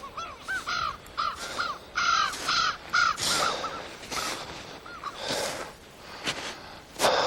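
Corvids cawing: a rapid series of about a dozen short, arched caws over the first five seconds, with a few rustling noises and a sharper one near the end.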